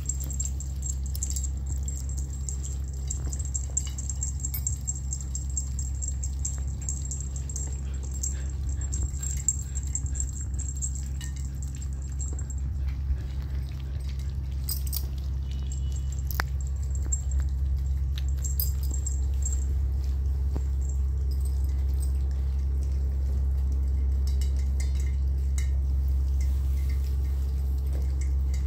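Steady low hum under scattered small clicks and faint jingling from the little bells on month-old puppies' collars as they move about.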